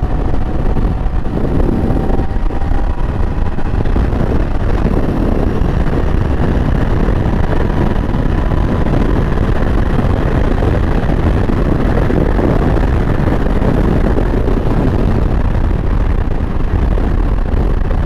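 Royal Enfield Interceptor 650's parallel-twin engine running at a steady road speed under heavy wind rush on the microphone. A faint whine rises slowly in pitch over the first half.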